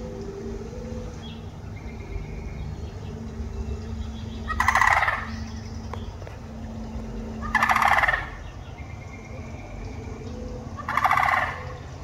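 Sandhill crane calling three times, about three seconds apart, each a short, loud, rolling, rattling call. A steady low hum runs in the background.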